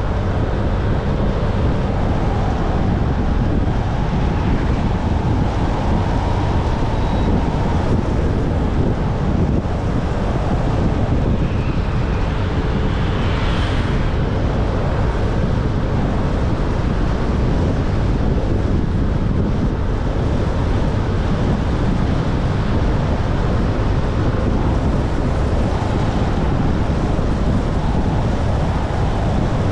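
Steady wind buffeting the microphone of a camera riding on a moving scooter, with the scooter's engine and road noise running underneath.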